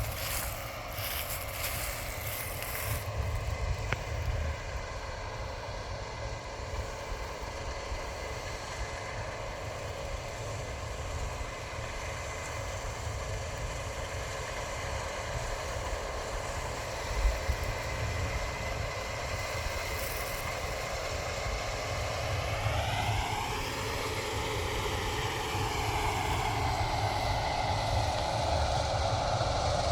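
Heavy harvest machinery running steadily, with a low rumble beneath it. About three quarters of the way through, a pitched whine rises and then slowly falls back, and the overall sound grows a little louder toward the end.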